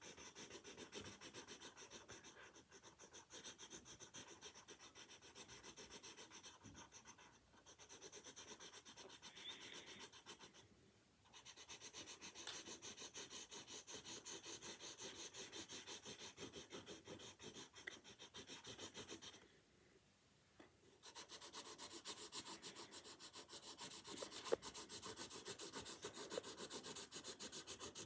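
Pen scratching on paper in rapid back-and-forth strokes, shading in a dense patch of hatching. The strokes come in several long runs broken by short pauses.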